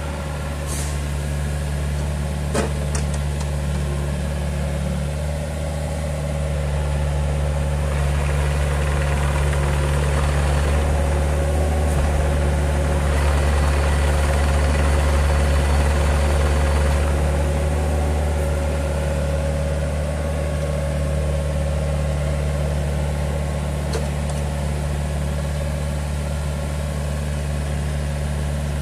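Neuson 6003 RD mini-excavator's diesel engine running steadily. It grows louder for several seconds in the middle, with a faint high whine.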